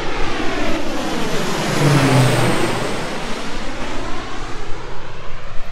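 Agricultural seeding airplane flying low overhead. Its engine and propeller grow loud to a peak about two seconds in, then the pitch drops and the sound fades as the plane passes over and away.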